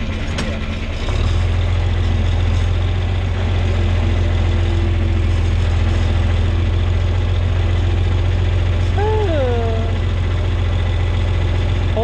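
John Deere 4020 tractor engine running steadily while pulling an implement. It grows louder about a second in and then holds an even, low hum.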